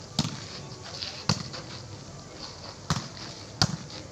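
Volleyball being struck by players' hands and forearms during a rally: four sharp smacks at uneven intervals, the last two close together.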